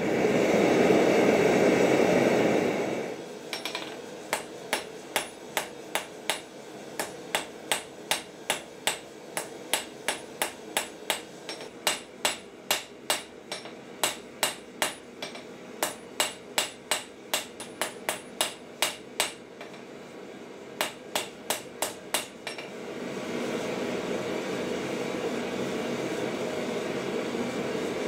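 Steady rushing of a gas forge's burner, then a hand hammer striking a red-hot steel bar on an anvil, about two blows a second for close to twenty seconds with a short break near the end. The forge's rushing returns once the hammering stops.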